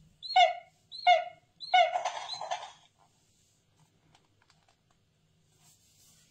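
Sound chip in a children's touchy-feely board book playing the griffin's chirp sound effect through its small speaker: three short bird-like calls about two-thirds of a second apart, then a longer, rougher one. Faint clicks of the board page being turned follow.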